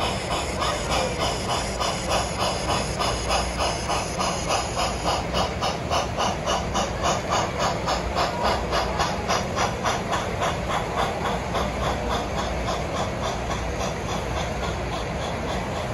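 Sound-equipped HO-scale model of Strasburg steam locomotive No. 89 chuffing as it runs, a steady beat of about four steam exhausts a second that fades in the last few seconds as the engine moves away.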